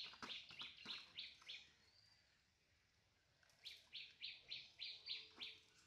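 A bird calling in a series of short, high, evenly repeated notes, about three a second, in two bouts with a pause of about two seconds between them.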